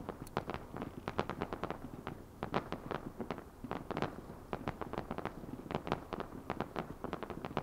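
A barrage of fireworks going off: a dense, uneven run of sharp pops and cracks, several a second, with no let-up.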